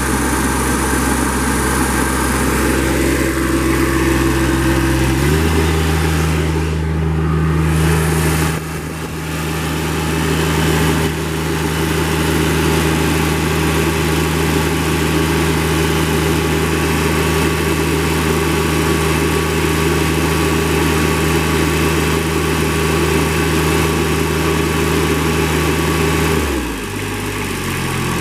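Toro Reelmaster 5200-D's small diesel engine running at idle, then throttled up to a higher steady speed about five seconds in. It holds there and is brought back down near the end.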